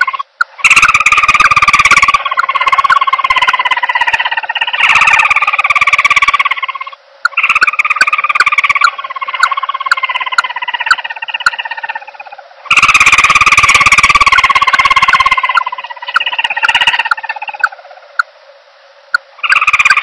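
Recorded calls of the common emerald dove, played as a trapping lure: long pitched calls in a series, each sliding slightly lower, with rapid ticks running through them and short pauses between phrases.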